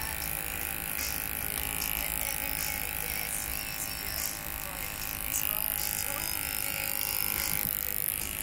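Corded electric hair clipper buzzing steadily while trimming the neckline and around the ear.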